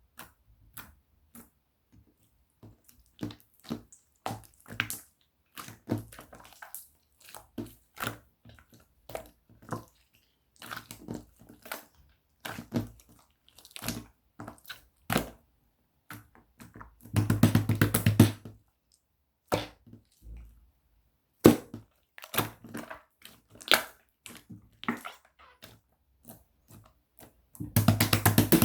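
Orange slime being squished and pressed by hand, giving irregular sticky clicks and snaps. There are two runs of rapid crackling pops, one about halfway through and one near the end.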